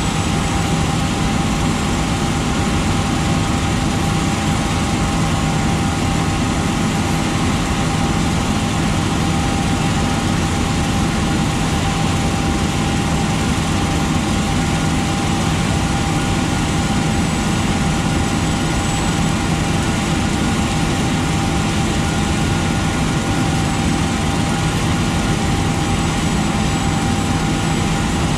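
John Deere 9520RX tractor's diesel engine running steadily, a constant low drone with a steady whine over it.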